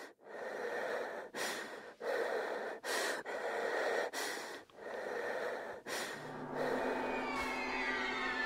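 A person breathing heavily in ragged gasps, about seven breaths of a second or so each. Orchestral strings fade in about six seconds in.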